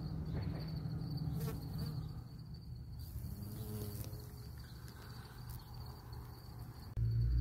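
Bumblebee buzzing as it flies about the sunflowers, strongest in the first few seconds, over a steady high-pitched tone. A sudden low rumble comes in near the end.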